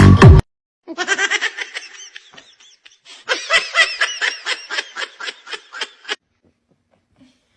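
Two bouts of fast, high-pitched laughter, each a quick string of short pulses; the second bout is longer.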